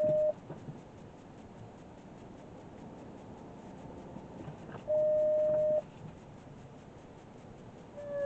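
Jeep Grand Cherokee's electronic reverse warning chime beeping as the vehicle backs up: a short beep at the start, a longer steady tone of about a second around five seconds in, and another beep near the end.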